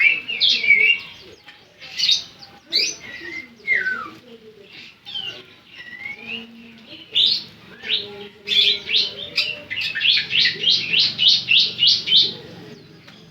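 Bar-winged prinia (ciblek) singing: sharp high chirps and short gliding whistles, with a fast run of about four to five chirps a second near the end.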